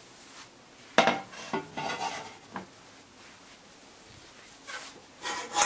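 Pots, pans and utensils clattering as they are handled. There is a sharp knock about a second in and a few lighter knocks after it, then a louder clatter with a brief ring near the end.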